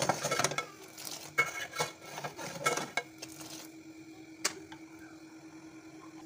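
A steel bowl scooping boiling milk tea out of a steel pot and pouring it back, with splashing and a few metal clinks over the first three seconds. Then a single sharp click, over a steady low hum.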